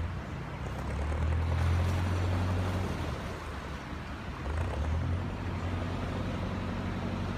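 Narrowboat engine running under load while the boat manoeuvres, its propeller churning the water at the stern. The engine note swells about a second in, eases off around three seconds, and picks up again about five seconds in.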